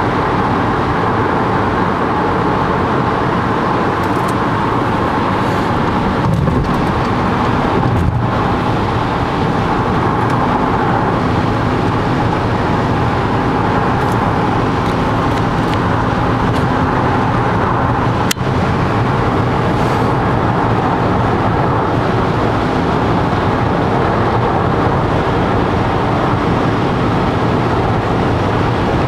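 Steady road and engine noise heard inside a car's cabin while cruising on a freeway, with a single sharp click about two-thirds of the way through.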